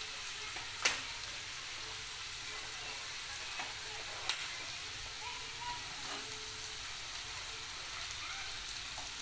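Chopped onion, curry leaves and coriander sizzling steadily in hot oil in a kadhai, the onion frying until it turns reddish. A sharp click about a second in and a smaller one about four seconds in.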